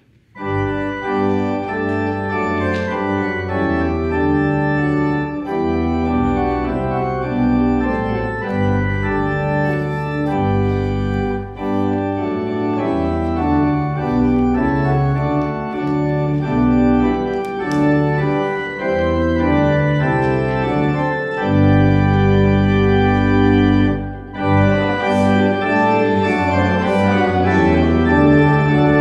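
Church organ playing held chords over a moving bass line, with a brief break between phrases about four-fifths of the way through.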